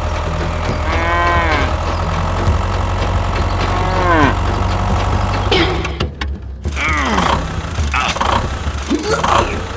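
A small engine or motor humming steadily, with several short calls that rise and fall in pitch over it.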